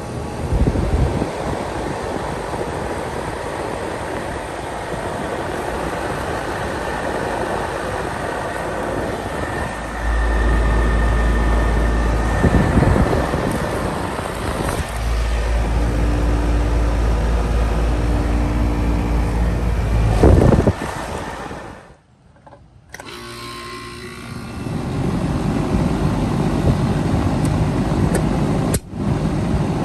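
Air conditioner units starting up and running: a steady rush of fan air, joined by a deep hum that comes in about a third of the way through, drops out briefly and returns. After a sudden cut to silence about two-thirds through, another unit's rush builds up.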